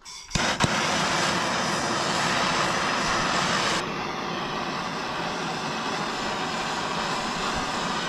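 Hand-held Bernzomatic trigger-start torch on a yellow MAP-Pro gas cylinder, clicking alight about half a second in and then burning with a steady rushing hiss as it heats a copper pipe fitting for silver soldering. The hiss turns a little duller and quieter about four seconds in.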